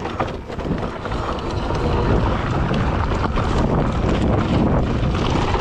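Mountain bike riding down a rough, rocky trail: wind rushing on the microphone over a steady clatter of knocks and rattles from the bike and its tyres on rocks and loose ground.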